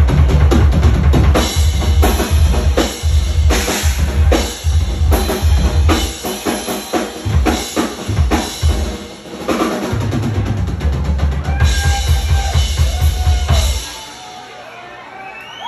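Live drum kit solo: fast, dense kick drum under snare and tom fills, with repeated cymbal crashes. The playing stops suddenly about two seconds before the end.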